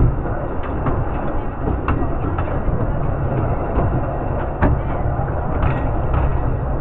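Narrow-gauge railway carriages running along the track: a steady low rumble with a few irregular sharp clicks of wheels over rail joints, heard through an open carriage window.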